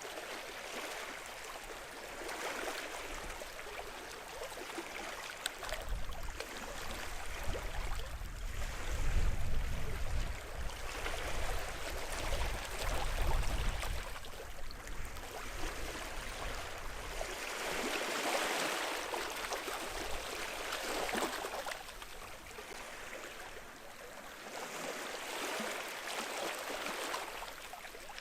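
Small sea waves washing onto the shore, each wash swelling and fading every few seconds. A low rumble sits under them for several seconds near the middle.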